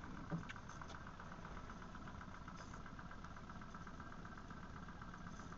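Boat motor running steadily at low speed, with a short click about a third of a second in.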